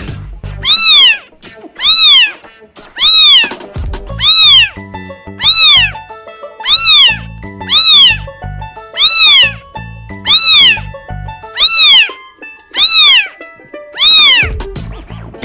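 Kitten meowing over and over, about a dozen loud, high meows evenly spaced a little over a second apart, each rising and then falling in pitch.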